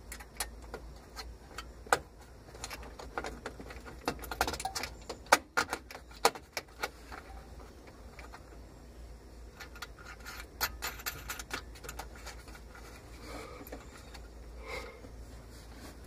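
Irregular small clicks, taps and rattles of wiring and metal switch hardware being handled and fitted under a pickup's dashboard, busiest in the first half and again briefly later, over a steady low hum.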